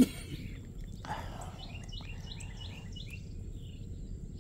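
A single sharp knock at the start, then a small bird chirping a quick run of short, falling notes.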